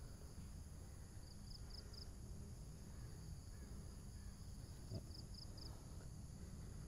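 Faint outdoor ambience: insects droning steadily in high tones, with two short runs of three quick chirps, one about a second in and one near five seconds in. A low rumble sits underneath, with one faint tap near five seconds.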